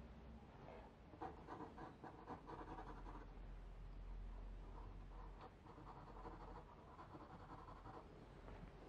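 Graphite pencil scratching faintly across drawing paper in quick sketching strokes, in two runs: from about a second in to about three seconds, and again from about five and a half to eight seconds.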